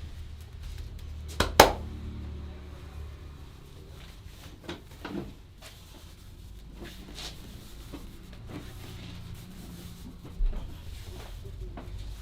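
Barber's hands massaging a man's back. There is one loud, sharp snap about a second and a half in, softer clicks around five seconds, and a short dull thump near the end.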